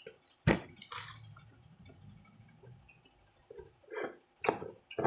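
Close-up eating sounds: a few sharp wet mouth clicks and smacks, with soft chewing between them.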